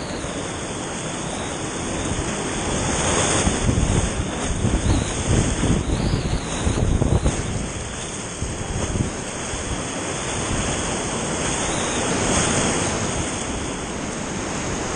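Whitewater rapids rushing around a kayak running them, picked up close by a body-mounted camera, with water splashing over the boat and onto the microphone. The splashing comes in louder, uneven bursts from about three to seven seconds in.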